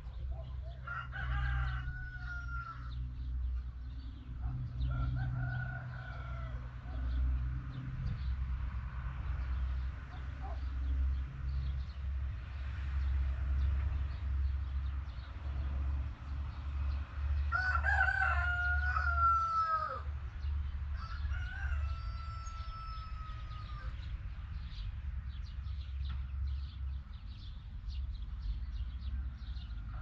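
A rooster crowing several times, each crow a drawn-out call. The loudest crow comes about two-thirds of the way through, and all of them sound over a steady low rumble.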